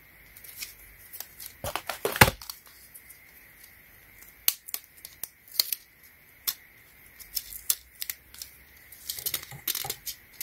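Plastic reels of LED light strip being handled: irregular sharp clicks and crackles as the reels knock together, the tape tab is peeled off and the strip is unwound from the reel. The loudest click comes about two seconds in.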